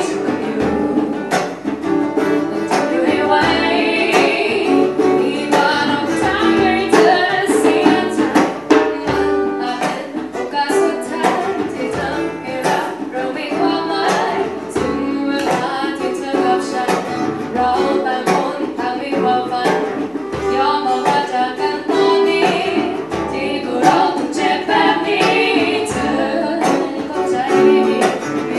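Live acoustic performance: two women and a man singing a song together over a strummed acoustic guitar.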